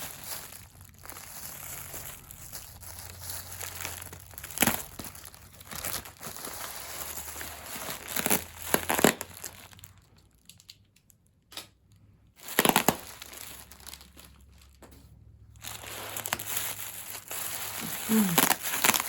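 Packaging being handled and unwrapped by hand, crinkling and crackling with sharp crunches. It falls quiet for a couple of seconds a little past halfway, then picks up again.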